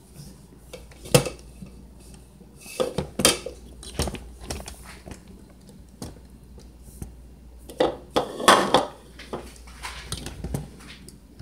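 Kitchen utensils and mixing bowls clinking and knocking as they are handled and set down on a countertop: a scattered series of clatters, busiest about eight seconds in.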